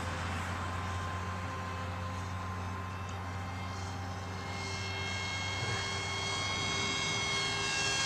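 Electric motor and 6x4 propeller of a foam-board RC plane in flight, giving a steady whine that rises slightly in pitch and grows louder over the last few seconds.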